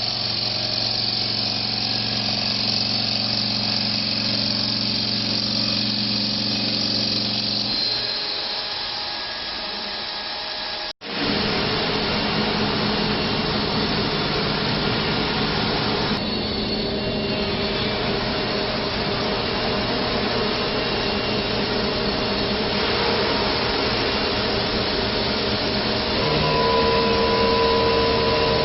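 CNC bridge saw machining a shower base: steady motor and cutting noise, changing character about 8 seconds in and breaking off abruptly for an instant about 11 seconds in before resuming as a dense, even grinding noise.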